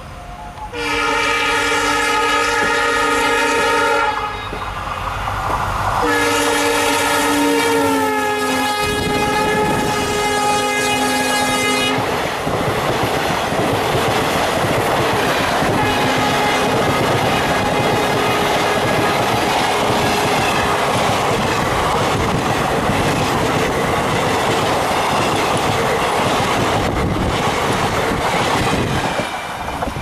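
EMD GT46PAC (WDP-4) diesel locomotive honking its air horn: one long blast, then after a short gap a second long blast that drops in pitch as the locomotive passes. The express coaches then run past on the rails.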